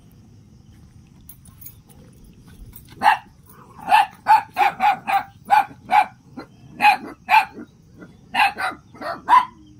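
A dog barking repeatedly in short, sharp barks. It starts about three seconds in and goes on at about two or three barks a second.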